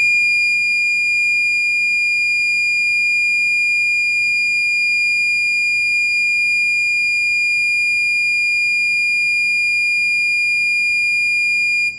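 Gentex GOS-24-15/75WR horn strobe sounding its 2400 Hz continuous tone on high volume: one steady, very high-pitched tone that cuts off suddenly near the end.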